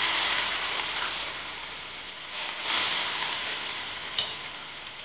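Potatoes frying: a hissing sizzle that swells twice, with a few light clicks.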